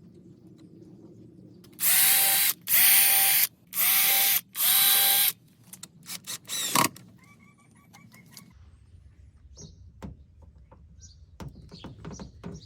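Power drill run in four short bursts, each under a second, its motor whining up to speed at the start of each. A few sharp clicks follow.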